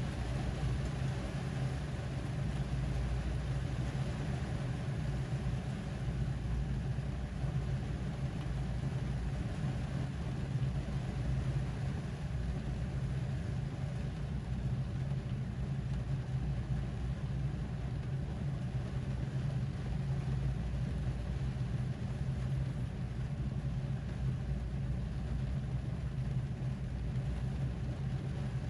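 Rain falling on a car, heard from inside the cabin, steady throughout, over a constant low hum.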